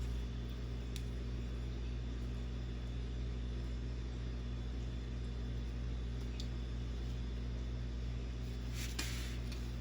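A fork and knife click and scrape on a plate a few times, mostly near the end, over a steady low electrical hum.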